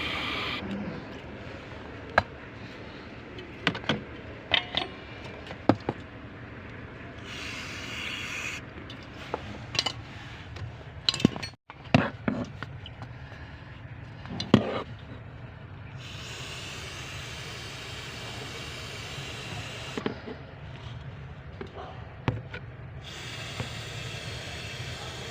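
Scattered sharp clicks and knocks of hand tools working on engine parts, broken by a few stretches of steady hiss lasting a couple of seconds each. The engine is not running.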